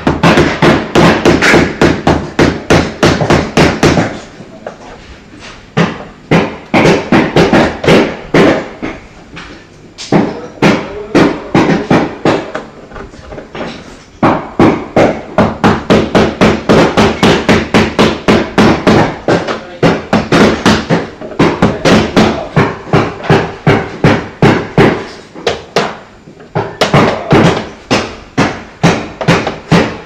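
A hammer striking repeatedly, about three blows a second, in runs broken by short pauses.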